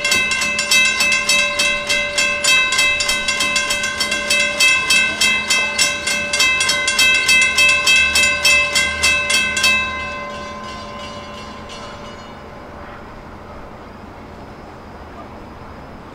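Railroad crossing warning bell ringing, about three rapid strikes a second with a steady ringing tone, sounding while the crossing's red lights flash to warn of a train. It stops about ten seconds in and dies away, leaving a quieter steady hum.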